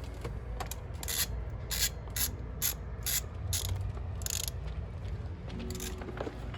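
Hand ratchet clicking in short runs, two to three clicks a second, as fasteners on the engine covers and intake are worked loose.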